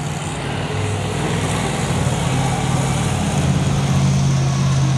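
Monster truck's big-block V8 engine running as the truck drives across a dirt arena, a steady low engine note that grows louder and steadier from about three seconds in.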